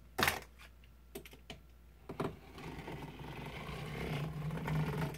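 A rotary cutter and acrylic ruler being handled on a cutting mat: a few sharp clicks and taps, then a longer scraping cut through felt that grows louder toward the end.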